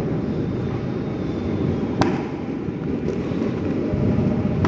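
A single sharp firework bang about two seconds in, over a steady low rumble.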